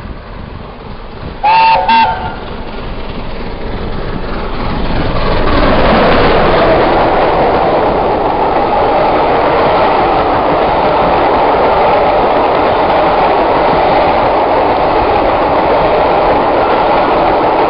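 An approaching locomotive gives two short toots on its horn about a second and a half in. Then a passenger train runs through at speed, the noise of its wheels on the rails rising over a few seconds and holding steady as the coaches pass.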